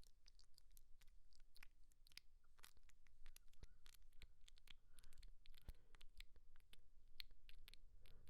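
Faint, scattered small clicks and crackles, many per second at irregular intervals, over near silence.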